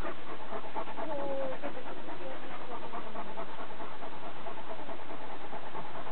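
Irish wolfhounds panting steadily in the summer heat, a quick even rhythm of breaths.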